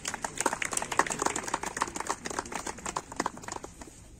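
A small crowd applauding, with dense, irregular hand claps that die away near the end.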